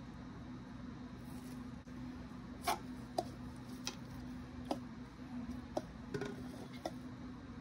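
Light taps and clicks of plastic cups, coasters and a picture frame being picked up and set down on a plastic-sheeted table, about seven in all, over a steady low hum.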